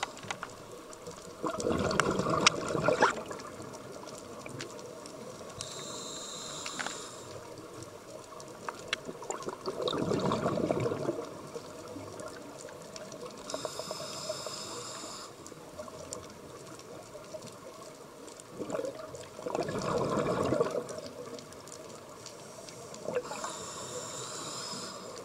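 A scuba diver breathing through a regulator. Three bursts of exhaled bubbles come about eight seconds apart, and each is followed a few seconds later by the high hiss of an inhale through the demand valve.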